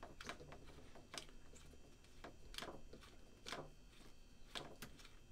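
Near silence with a few faint, scattered clicks from the threaded hose fitting and the plastic housing as the regulator hose is unscrewed by hand from a Mares second stage's hose adapter.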